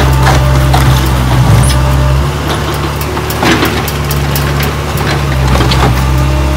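Kobelco SK03 mini excavator's diesel engine running under load, its note shifting about two seconds in and again after five seconds as the hydraulics work. Scattered knocks and clatter of broken concrete as the bucket breaks up a concrete base.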